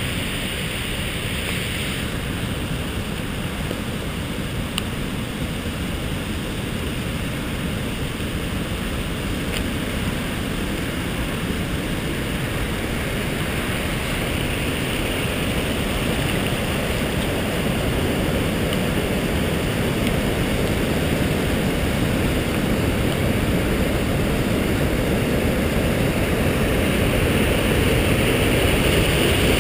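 Floodwater of a swollen river rushing and pouring over a weir: a steady rush of water that grows gradually louder over the second half.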